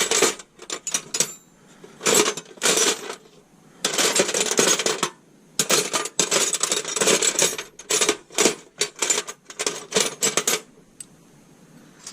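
Metal sockets clinking and rattling against each other in bursts as they are rummaged through in a socket set, in search of a missing 16 mm socket.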